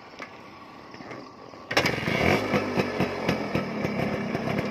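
Suzuki Max 100's two-stroke single-cylinder engine with an expansion-chamber exhaust, fairly quiet at first, then suddenly loud under throttle a little under two seconds in, with a rapid crackling edge as the motorcycle pulls away.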